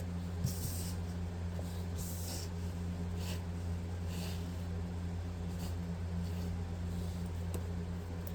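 A steady low hum with several brief soft rustling swishes over it, the sound of cards being handled during a card reading.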